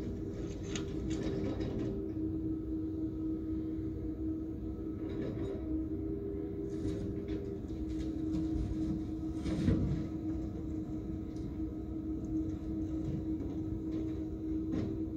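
Komatsu tracked excavator running steadily with a constant hum and low rumble while its grapple bucket crunches and drops demolition debris, several clattering crashes, the loudest about ten seconds in.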